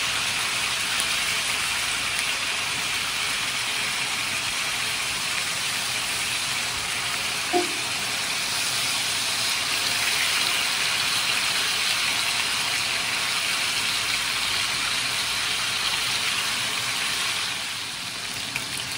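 Marinated chicken fillets frying in hot oil in a pan, giving a steady sizzle, with one brief click about seven and a half seconds in.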